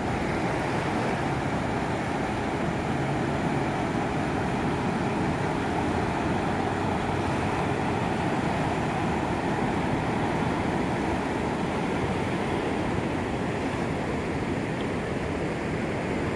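Fast brown floodwater of a swollen creek rushing over its banks and across a paved trail: a steady, unbroken rush of water.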